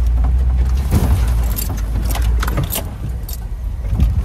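Open safari game-drive vehicle driving over a bush track: a steady low rumble with frequent clicks and rattles from the vehicle.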